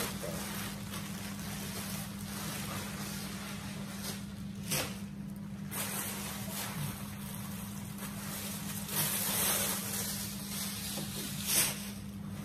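Clear plastic bag crinkling and rustling as a jacket is pulled out of it and its fabric is handled, in uneven swells, over a steady low hum.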